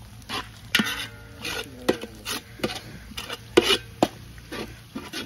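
A metal ladle stirring and scraping sliced onions around the bottom of a large metal cooking pot as they fry in oil for biryani. The scrapes come in quick strokes, about two a second, some leaving a brief metallic ring from the pot.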